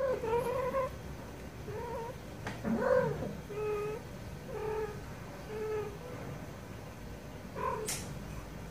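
Female domestic cat in heat calling: a string of about seven short, drawn-out yowls, one every second or so, the calling typical of a cat in season. A sharp click sounds near the end.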